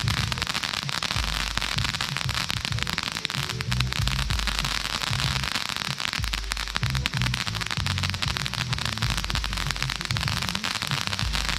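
Ground fountain firework spraying sparks: a dense, steady crackling hiss that keeps going without a break.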